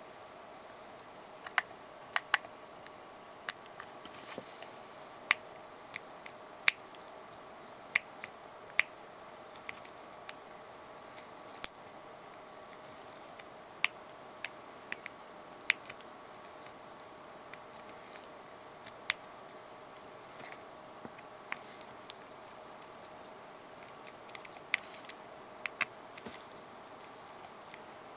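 Scattered sharp clicks and ticks of a small screwdriver and the handset being handled as the last case screw goes into an iPhone 3G, over a faint steady hum.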